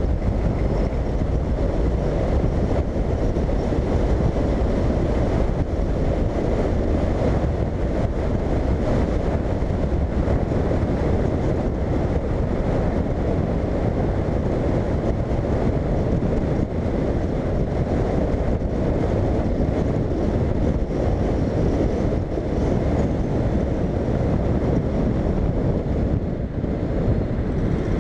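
Steady wind rush on the microphone of a camera mounted on a moving Honda Integra motorcycle, with the engine and road noise underneath as it rides at city speed.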